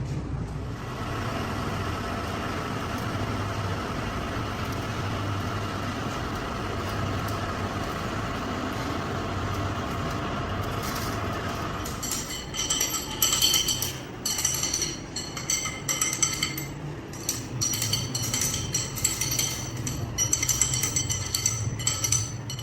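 A workshop machine running steadily with a hum and a few steady tones. About halfway through, loud, irregular, high-pitched screeching starts on top and keeps starting and stopping.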